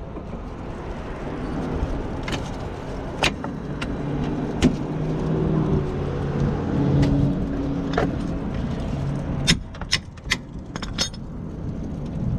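Sharp metallic taps and clinks, about eight in all, as a tight-fitting front brake pad is tapped into place at the caliper. A motor vehicle hums underneath through the middle and drops away near the end.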